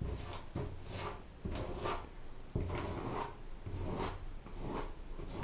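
The end of a squeeze tube of filler scraped back and forth over a textured drywall wall, spreading and smoothing a patch: repeated short rubbing strokes, about two a second.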